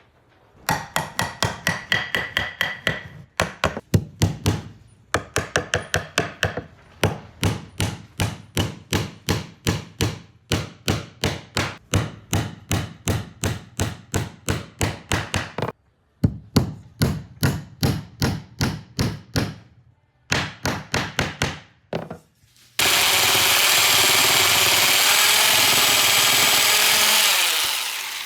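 Hand tool working wood in rapid, regular strokes, about two to three a second, in several runs with short pauses; the first run carries a faint ring. About four-fifths of the way in, a power tool starts, runs loudly and steadily for about five seconds, then winds down.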